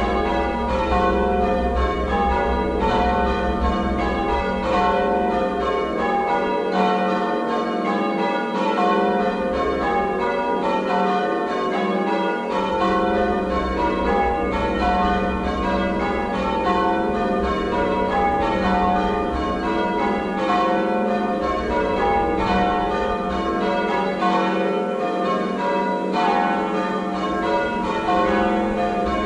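A ring of six church bells, tenor about 10 cwt in F, being rung in full-circle ringing. The bells strike one after another in a steady, unbroken rhythm, their tones overlapping.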